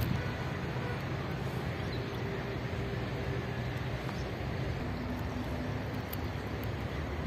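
Steady low hum of distant city traffic, with faint engine tones in it.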